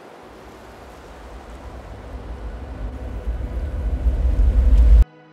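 Outdoor rush of flowing stream water, with wind buffeting the microphone as a low, gusting rumble that grows louder over about five seconds, then cuts off abruptly near the end.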